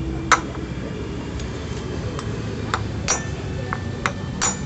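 Hammer tapping a socket used as a drift to seat a part into the hub of a Honda Vario scooter's CVT pulley: sharp metallic taps with a short ring, one strong tap near the start and a run of lighter, irregular taps in the second half.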